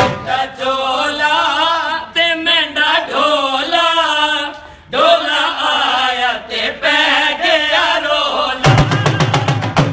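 A single voice singing a long, ornamented line with wavering pitch, with a short break about halfway. Dhol drum strokes come back in near the end.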